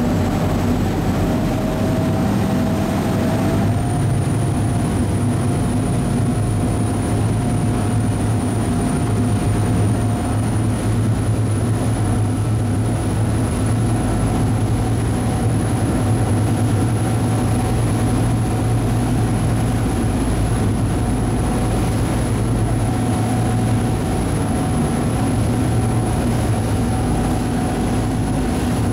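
Ferry's engines running steadily at cruising speed, heard aboard: a heavy low drone with a thin high whine over it that steps up slightly in pitch about four seconds in.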